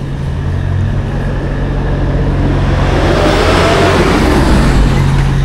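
A motor vehicle passing close by on the road, its engine and tyre noise swelling to a peak about three to four seconds in, with a falling pitch as it goes by, over a steady low engine hum.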